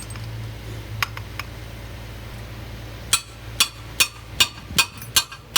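Metal-on-metal hammer strikes: two single taps about a second in, then from about three seconds in a steady run of blows, roughly two to three a second, over a steady low hum.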